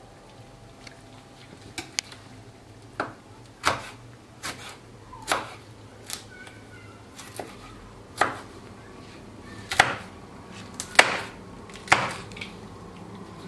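Kitchen knife slicing a green chili pepper on a wooden cutting board: about a dozen sharp, irregular knocks of the blade hitting the board, roughly a second apart.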